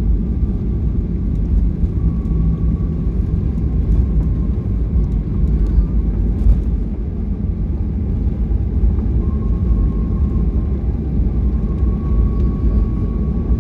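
Cabin noise of a Boeing 737 rolling out on the runway after landing, spoilers up: a steady low rumble from the engines and wheels. A thin faint whine drifts in and out over it, strongest in the second half.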